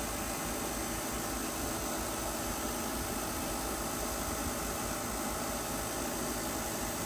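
A grinder's electric motor running steadily, an even hum and hiss with a few constant tones and no change in level.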